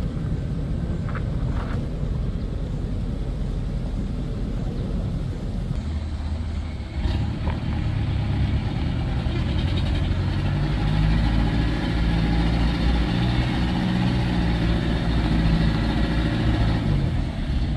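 Vehicle engines labouring up a steep incline: first a small car's engine pulling uphill, then, after a jump in loudness about seven seconds in, a Mitsubishi light truck's diesel engine running hard under load, its low drone holding and stepping in pitch.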